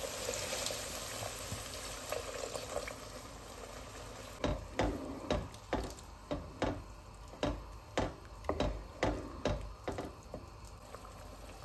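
Beef stock poured into a hot pot of sautéed vegetables, hissing and bubbling. From about four seconds in, a wooden spoon stirs it, knocking and scraping against the pot about twice a second.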